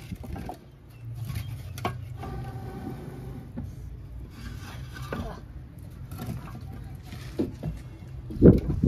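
Hands kneading samosa dough of flour, ghee and warm water: soft, irregular pats and squelches, with one heavier thump near the end.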